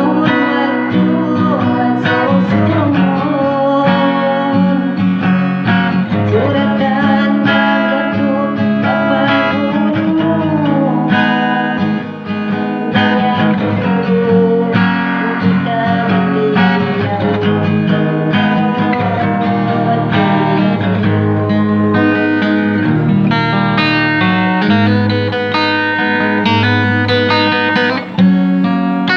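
Guitar music: plucked and strummed strings playing a continuous run of notes.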